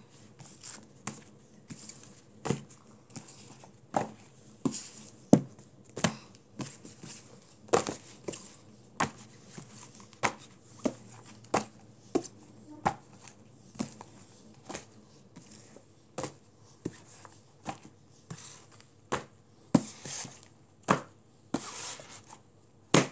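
Paperback books being set down one by one onto a stack: a string of irregular knocks and paper rustles, about one or two a second.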